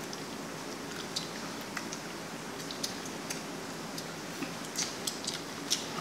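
Quiet chewing: a few faint, scattered mouth clicks over a steady room hum.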